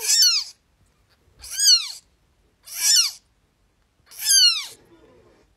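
Newborn Bengal kitten crying: four high-pitched mews, about a second and a half apart, each rising and then falling in pitch.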